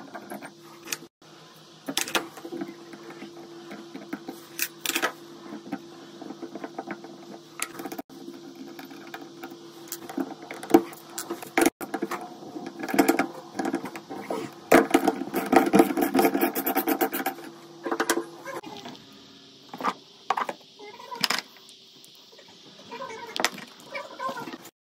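Metal clicks, knocks and scraping as a chrome bath mixer tap is worked on by hand, its handle and brass tap cartridge being turned and pulled loose. The clatter is busiest a little past the middle, and the sound drops out abruptly a few times.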